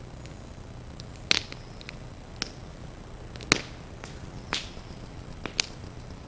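Burning thatch crackling: about six sharp, irregular pops and cracks over a steady low background noise.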